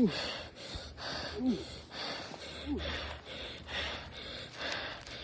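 A person panting hard and fast, about three breaths a second, with a few short voiced grunts mixed in.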